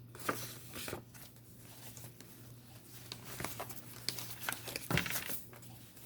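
Tarot cards being shuffled and handled: irregular soft snaps and rustles, with a louder snap about five seconds in, over a low steady hum.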